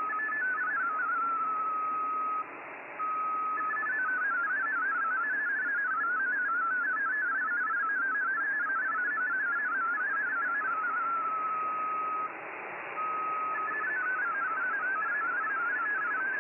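MFSK32 digital data signal from the VOA Radiogram shortwave broadcast, heard through the receiver's audio over constant static hiss. A single steady tone breaks into fast warbling, hopping tones that carry the decoded text, then settles back to the steady tone before warbling again near the end. The signal cuts out briefly twice.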